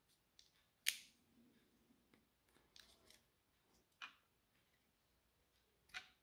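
A handful of sharp clicks and light taps from a DeWalt 18V XR battery's cell pack and plastic cell holder being handled, the loudest about a second in, others around three, four and six seconds in, over near silence.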